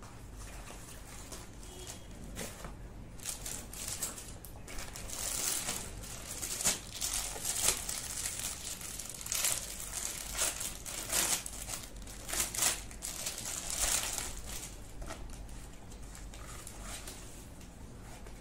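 Clear plastic packaging bag crinkling and rustling in irregular bursts as hands unwrap a folded T-shirt, busiest through the middle and fading near the end.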